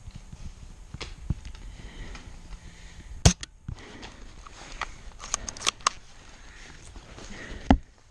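Airsoft guns firing single shots: sharp cracks spaced irregularly, with a quick cluster about five and a half seconds in. The loudest cracks come about three seconds in and near the end.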